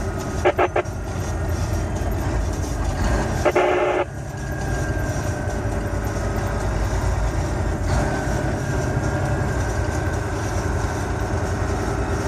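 Steady drone of a semi truck's engine and tyres on a snow-packed road, heard from inside the cab. Brief crackling bursts come about half a second in and again around three and a half seconds in.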